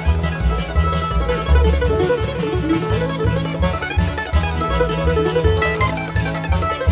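Bluegrass string band playing an instrumental break between sung verses, banjo prominent over guitar and mandolin, with a steady bass pulse underneath.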